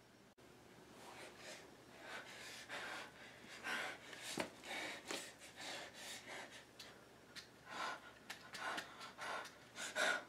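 A boy breathing hard in a string of irregular gasps and sharp breaths, the loudest near the end.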